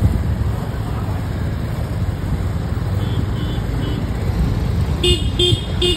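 Busy road traffic: a steady rumble of motorcycle and car engines, with a few faint short horn toots around the middle and three quick horn beeps near the end.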